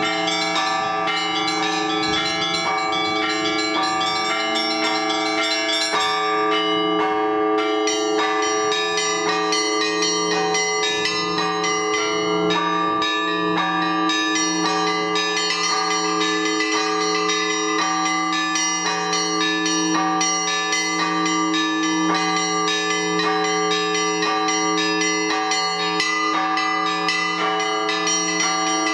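Orthodox church bells rung together in a fast, continuous peal: small bells chime rapidly over the steady, pulsing hum of the larger bells, the festive ringing that calls to the all-night vigil.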